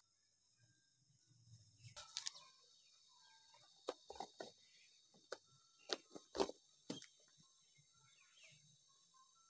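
Scattered short, light clicks and knocks, about a dozen of them from about two seconds in until near the end, over a faint steady hiss.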